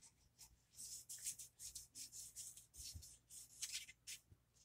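Paintbrushes scrubbing paint onto paper: faint, repeated short scratchy strokes, several a second, starting about a second in.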